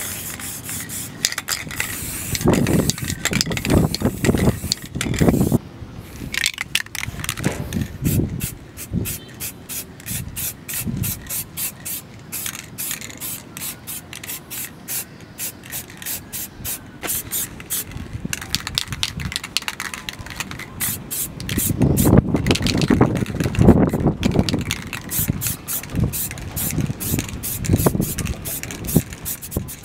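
Aerosol spray-paint can spraying yellow paint onto a cast-iron vise body in many short hissing bursts. There are louder low rumbling bumps twice.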